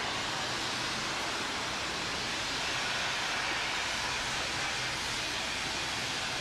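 Steady city street ambience: an even hiss of traffic on a main road, with no single sound standing out.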